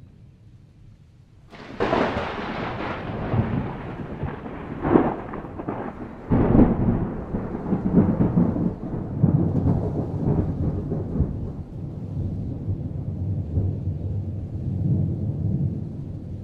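Thunder: a sudden sharp crack about a second and a half in, then long rolling rumbles with two more loud claps a few seconds later, fading into a steady low rumble.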